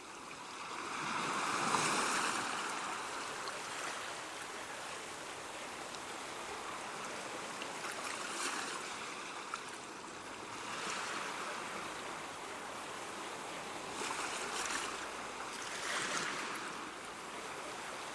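Ocean waves washing on a shore: a steady hiss of surf with a louder wash of breaking water every few seconds, the biggest about two seconds in.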